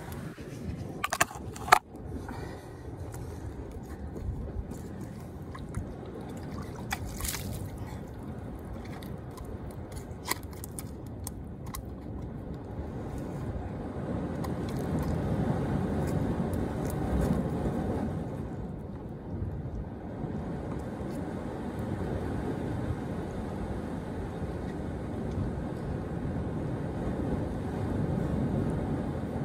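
Ocean surf and wind buffeting the microphone, a steady low rumble that swells and eases. A few sharp knocks and scrapes in the first seconds as the phone is handled and set down.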